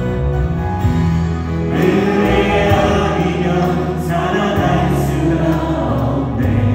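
A church praise team of several singers, men and women together, singing a Korean worship song into microphones over live instrumental accompaniment. The voices grow fuller about two seconds in.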